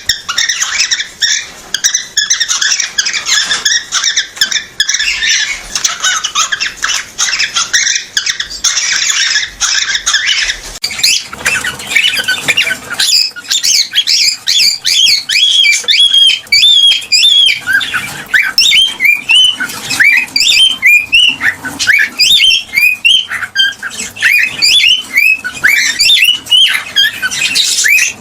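Cockatiel vocalising: a dense, harsh chattering for about the first ten seconds, then a fast series of short whistled chirps, each rising and falling in pitch, several a second.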